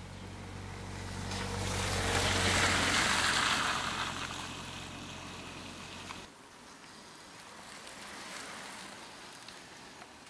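A vehicle's low engine hum with a swell of rushing noise that rises to a peak a couple of seconds in and fades. Both stop abruptly at about six seconds, leaving fainter outdoor noise with a small swell near the end.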